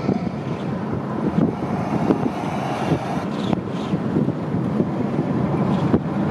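Steady road and engine noise inside a moving car's cabin: tyre rumble on the pavement with the engine underneath, a few faint knocks from the road surface.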